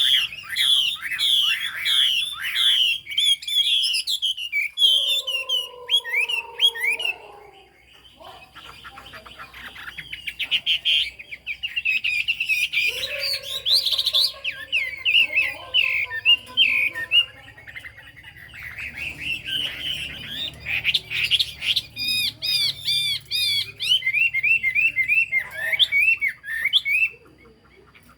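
Chinese hwamei singing long, loud phrases of rapid, varied whistled notes, broken by short pauses; a lower, falling note is held briefly about five seconds in.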